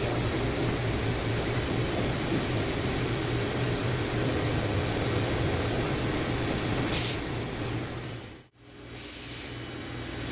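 Steady background hum, broken by two short hissing sprays about seven and nine seconds in, from cleaning the engine's cylinder bores.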